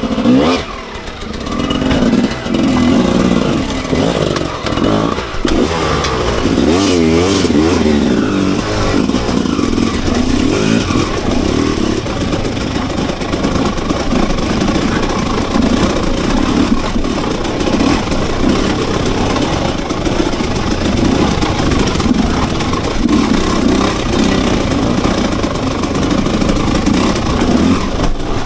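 Enduro dirt bike engine running and revving, its pitch rising and falling over and over as it is ridden off-road.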